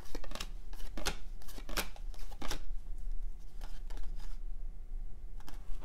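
1993 Topps baseball cards being flipped through one at a time from a hand-held stack: short, irregular papery flicks and slides of card stock, with brief pauses between them.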